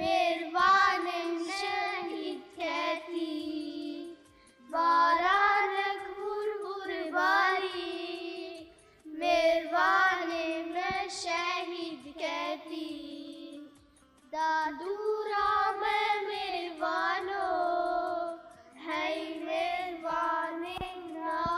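Children singing a song unaccompanied, in four phrases with short breaths between them.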